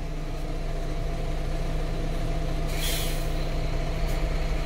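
Steady diesel engine drone heard from inside a tractor cab, with a short burst of hissing air about three seconds in.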